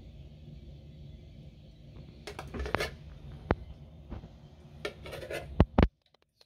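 A spoon clinking and clattering against a frying pan and a china plate while sauce is spooned onto rice. There are scattered sharp clinks, the two loudest in quick succession just before the sound cuts off suddenly near the end.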